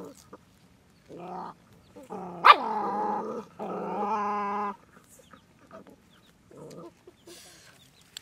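Young dogs squabbling over food: a few drawn-out cries in the first half, the loudest a sharp yelp about two and a half seconds in, then only faint scuffling.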